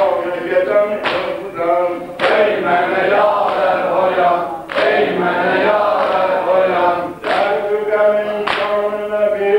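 Men chanting a Muharram mərsiyə (Shia lament for Imam Husayn) in a sustained, melismatic voice with others joining in, cut by a sharp slap every one to two and a half seconds that marks the beat, in the manner of mourners' chest-beating.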